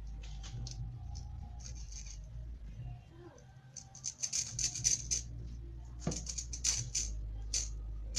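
Cutter snipping the loose copper braid strands of an RG6 coax cable: quick sharp clicks in several clusters, mostly in the second half, over a steady low hum.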